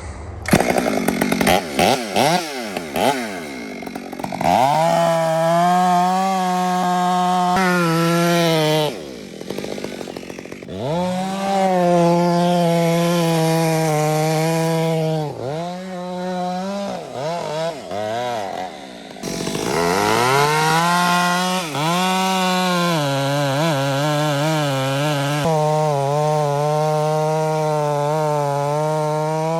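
Chainsaw with a skip-tooth, square-ground chain cutting very hard Australian pine: the engine revs up and runs at full throttle in three long cuts, its pitch wavering under load, dropping back briefly between them. The wood is so hard that the chain can't pull chips and turns it to powder.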